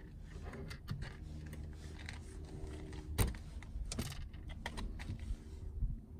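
Hands handling a car amplifier and its fittings: a run of small clicks, taps and rattles, with a sharp knock about three seconds in and another about four seconds in. A steady low hum runs underneath.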